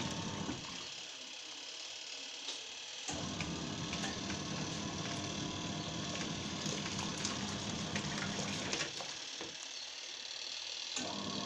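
Bruhm twin tub washing machine's wash tub agitating a small load of clothes in water: motor hum and churning water, with two pauses of about two seconds, about half a second in and again near the end, as the wash motor stops between reversals.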